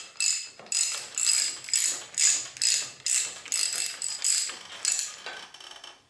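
Socket ratchet wrench clicking in repeated short strokes, about two to three a second, as it is swung back and forth to screw the plastic top caps into a suspension fork's legs; the strokes fade near the end.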